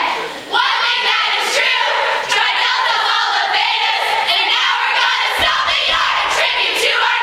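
A large group of young women singing and chanting loudly together in unison, breaking off briefly just after the start and then coming back in, with a few sharp claps or stomps.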